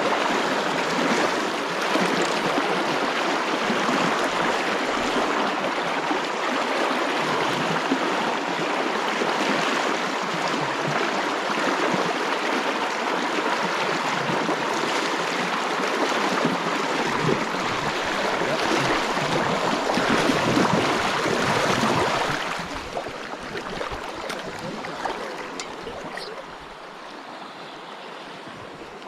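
River water rushing over rocks in a fast, slightly high mountain river, a steady noise that drops noticeably quieter about three-quarters of the way through.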